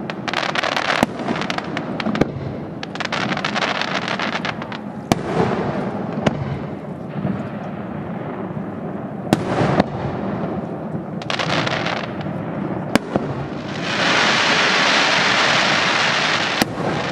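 Aerial fireworks shells bursting with sharp bangs every one to three seconds, rumbling echoes between them and stretches of crackling. Near the end, a loud steady hiss lasts about three seconds.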